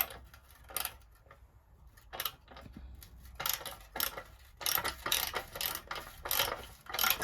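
Ratchet spanner clicking in quick, uneven strokes on a rusted bumper-iron nut of a VW Beetle, with a sharp click at the very start. The bolt is spinning with the nut instead of the nut undoing.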